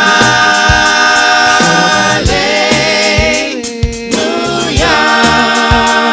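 Gospel choir and band: voices hold long sustained chords over a steady drumbeat, changing chord about every two seconds.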